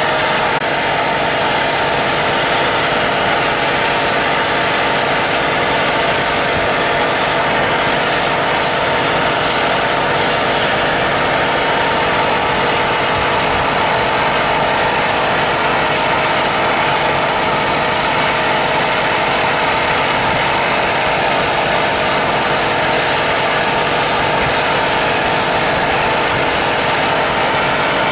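A machine running steadily and loudly, with a constant hum under a dense noise and no change in pace.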